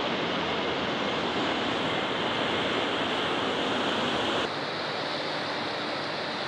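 Steady rush of moving water, dropping slightly in level about four and a half seconds in.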